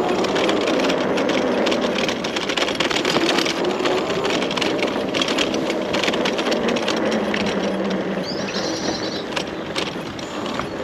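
Electric bike riding over rough ground: a dense crackle and rattle of tyres and frame on the uneven surface, with a faint motor whine that rises in pitch about the first second.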